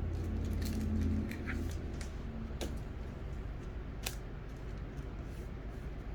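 Faint handling of a trading card and a plastic card sleeve: a few light clicks and rustles as the card is slid into the sleeve, over a low steady hum that fades out about a second in.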